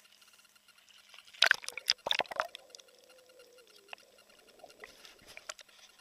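Water splashing and crackling against a small camera as it plunges back under the sea surface, a burst of sharp splashes about a second and a half in, then muffled scattered clicks underwater.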